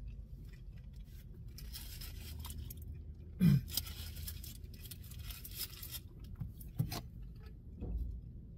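Paper burger wrapper crinkling and rustling as a cheeseburger is handled and eaten, with chewing underneath. A short hum from the eater comes about three and a half seconds in.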